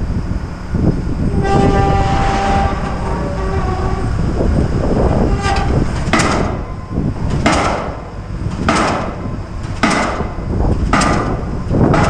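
Pile driver hammering a pile, with sharp regular blows about every second and a quarter starting around halfway through, over a steady low rumble. A pitched ringing tone sounds for about two seconds near the start.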